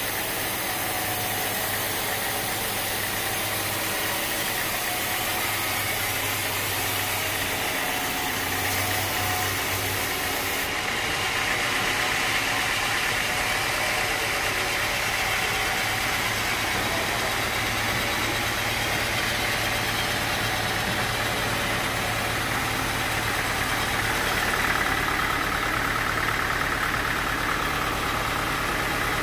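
Sawmill machinery running steadily: a continuous engine drone with a higher, hissing band that grows louder about ten seconds in and shifts lower in pitch near the end.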